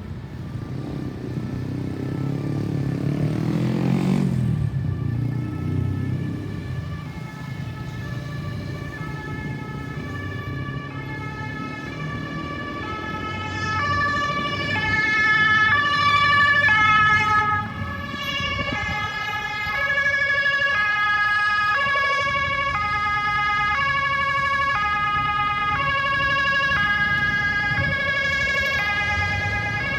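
Ambulance siren sounding a stepped electronic pattern, its tones jumping between several pitches about twice a second, growing louder partway through and holding on. About four seconds in, the noise of a passing vehicle swells and falls away.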